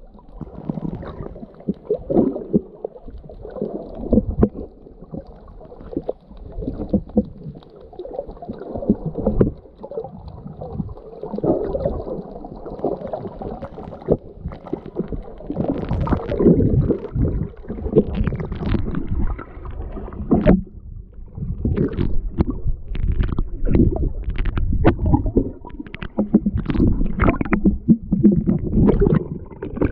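Muffled underwater sloshing and rumbling of moving water against a waterproof camera housing. In the second half, short choppy splashes and bubbling come more and more often as the camera rides just under the wave-tossed surface.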